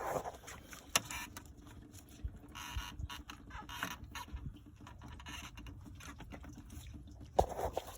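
Scattered clicks, light knocks and rustling or scraping as hoses and parts in a car's engine bay are handled and moved aside, with a sharp click about a second in and another near the end.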